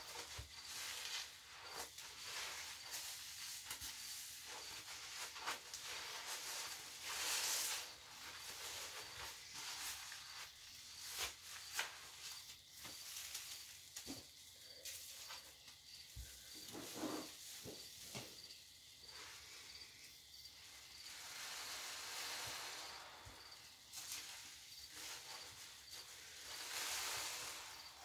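A sponge squeezed and kneaded by hand in a bowl of thick Ajax liquid-cleaner suds: wet squelching with a fizzing crackle of foam, swelling louder with the harder squeezes.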